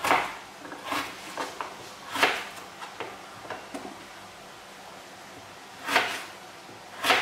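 Kitchen knife slicing a raw potato on a plastic cutting board: irregular knocks as the blade cuts through and strikes the board, several in the first few seconds, then a pause before two more near the end.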